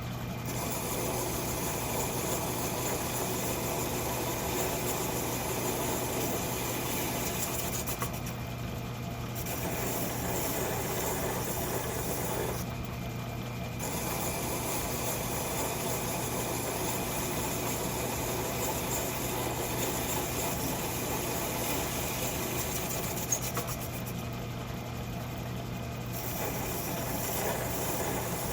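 Metal-turning lathe running steadily with a cutting tool working the metal; the cutting noise drops away briefly three times while the motor hum carries on, and there is one sharp click a little before the end.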